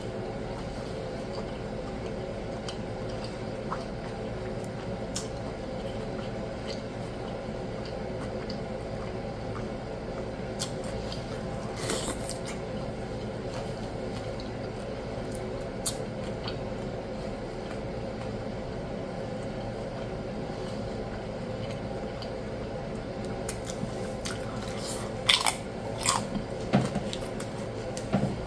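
Close-up mouth sounds of someone chewing a soft, saucy birria taco: wet squishes and small smacks over a steady background hum. The sharper smacks or clicks are loudest about twelve seconds in and in a cluster near the end.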